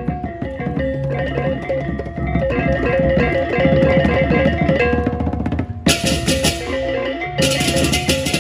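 Balinese balaganjur gamelan playing: ringing bronze gong-chime tones over dense drumming, and about six seconds in the clashing hand cymbals (ceng-ceng kopyak) come in loudly, break off for a moment, then crash again.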